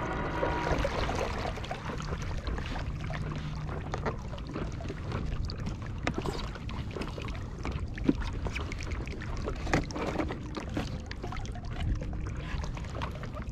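Water lapping against a paddle board with wind on the microphone, and scattered knocks and clicks as a plastic battery box is handled and opened.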